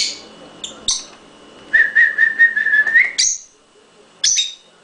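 Lovebirds giving short, shrill calls, with a steady, quickly warbling whistle for about a second and a half in the middle.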